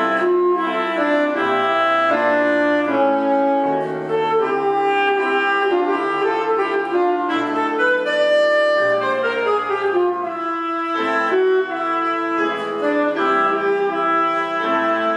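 Alto saxophone playing a melody in changing sustained notes, with piano accompaniment below it.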